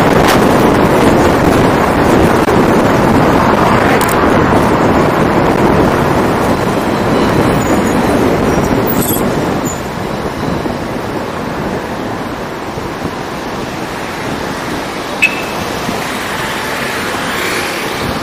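Steady rush of wind buffeting an outside-mounted camera's microphone, mixed with tyre and road noise from a car driving along city streets. The rush eases about ten seconds in, and there is a brief sharp blip about fifteen seconds in.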